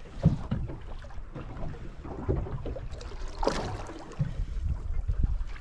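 Water lapping and slapping against the side of a drifting boat's hull, with wind buffeting the microphone and one louder rush of noise about three and a half seconds in.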